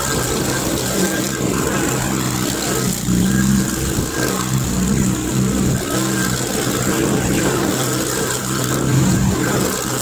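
Mustang 310 mini skid steer's engine running steadily under load as the machine drives and pushes snow, its level wavering a little.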